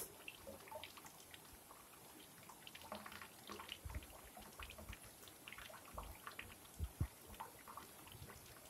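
Faint babbling and trickling of a shallow rocky stream, with many small scattered splashes and drips. A few soft low thumps break in, the loudest about seven seconds in.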